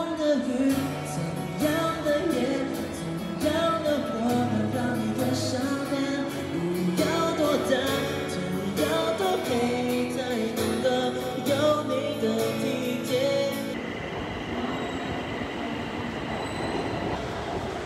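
A Mandarin pop song plays, a sung melody over bass and drums. About 14 seconds in the music stops and the steady noise of an elevated train station platform takes over.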